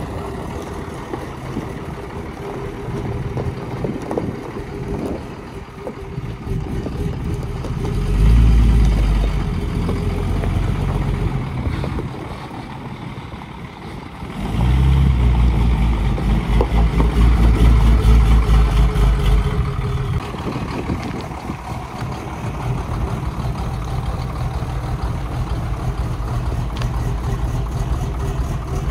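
2005 Dodge Ram 3500 dually's Cummins turbo-diesel engine running as the truck is driven. It gets louder under throttle twice, about a third of the way in and again near the middle for several seconds, then runs evenly.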